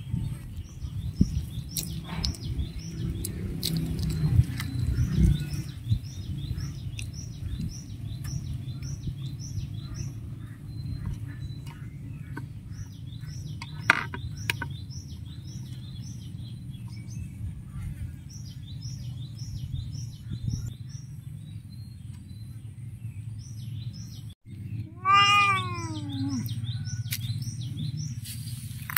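A cat chewing a small whole fish off a plate, small wet clicks and crunches, over a steady low hum and short high chirps repeating in the background. Near the end a cat gives one loud meow that falls in pitch.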